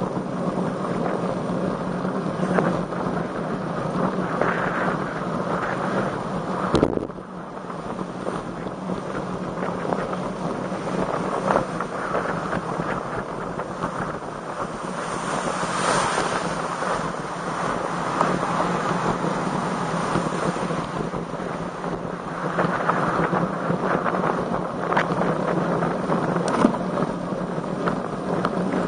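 Wind rushing steadily over the microphone during a road-bike ride, with one sharp knock about seven seconds in.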